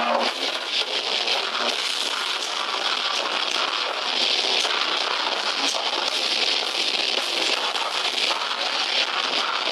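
Audience applauding steadily, a dense patter of claps.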